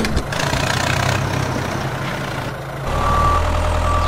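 Tractor engine running steadily. About three seconds in, the engine note deepens, and two short high beeps sound near the end.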